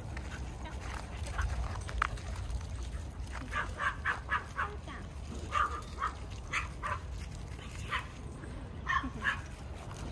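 Small dogs yipping in quick short bursts, a run of them about three to seven seconds in and a few more near the end, while they crowd and jump up on a person.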